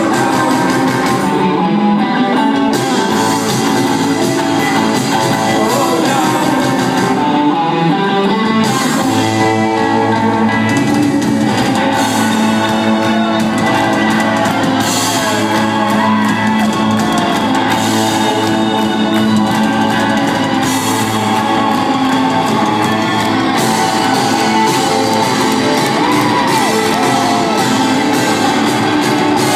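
Live rock band playing: electric guitars, bass guitar and drums, with singing, heard from the audience in a large hall.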